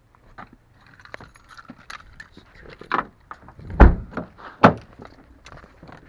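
Handling noises around a car seat: rustling and small clicks and knocks, with two loud thumps a little under a second apart in the second half.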